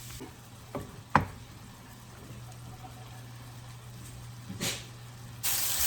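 A quiet stretch with a steady low hum and a single sharp tap about a second in; near the end a loud, even sizzle of mushrooms frying in butter starts abruptly.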